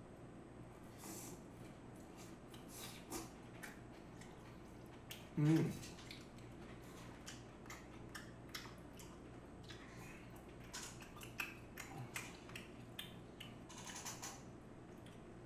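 Close-up eating sounds: soft, scattered clicks and small wet mouth noises from chewing and from wooden chopsticks picking food out of takeout containers and a plate, with one brief, louder low sound about five and a half seconds in.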